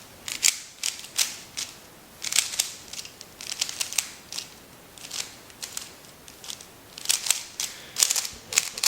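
Plastic 3x3 speed cube being turned by hand: quick clusters of clicks and clacks as the layers snap round, with short pauses between turns.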